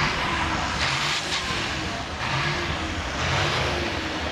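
Outdoor showground background of vehicle engines running, with a rushing hiss that swells and fades several times.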